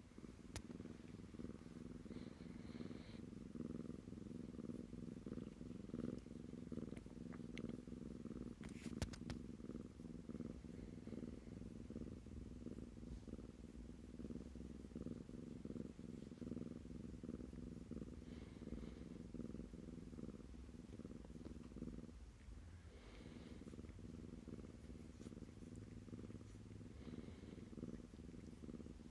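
Kitten purring steadily while being stroked, a close, low, pulsing rumble that eases briefly about two-thirds of the way through. A short click about nine seconds in.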